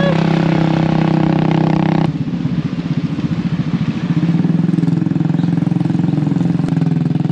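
Motorcycle engine running under a rider, a steady hum that about two seconds in drops into a rougher, pulsing putter.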